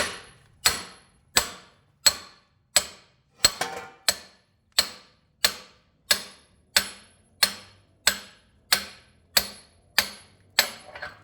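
A heavy hammer strikes a homemade stepped steel driver shaft in a steady series of about seventeen blows, roughly three every two seconds, each ringing briefly. The blows are driving the flywheel bushing and bearing out of a McCormick-Deering No. 9 horse-drawn mower.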